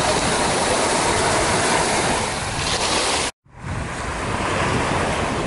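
Steady rush of sea surf with wind on the microphone, broken by a sudden brief cut to silence about three seconds in.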